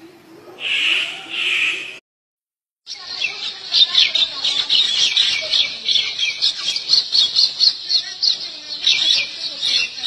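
Birds calling: two loud calls in the first two seconds, then a dead-silent gap of about a second, then a dense chorus of rapid, high chirps, several a second.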